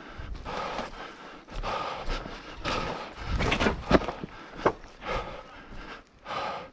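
Heavy breathing and footsteps of a person moving on foot, with rustling, and a few sharp snaps about halfway through, the loudest near the middle.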